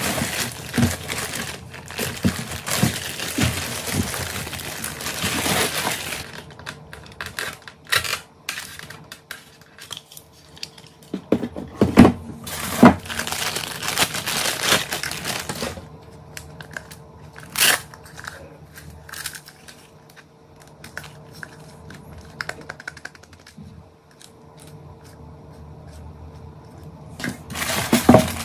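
Thin plastic packing bags crinkling and rustling in stretches, with scattered sharp clicks and knocks from handling the parts and the styrofoam packing tray.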